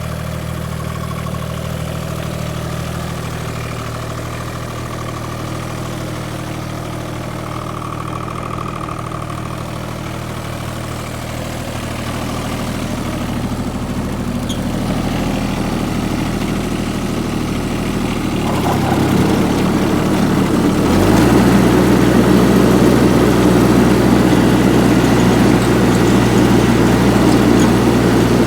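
Kubota G1700 ride-on mower's three-cylinder diesel engine idling steadily. About two-thirds of the way through, its speed steps up and it runs louder.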